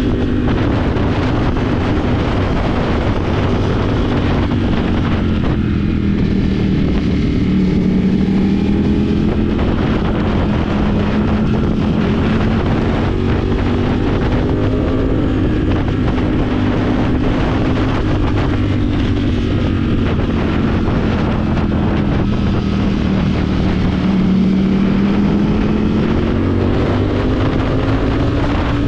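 Motorcycle engine running at road speed, its note sagging and climbing back twice as the pace eases and picks up, with wind rushing over the microphone.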